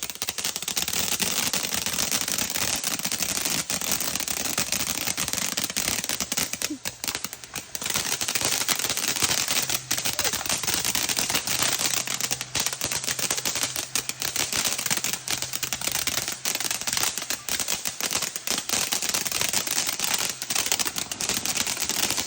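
Fireworks crackling: a dense, unbroken run of rapid sharp pops and snaps.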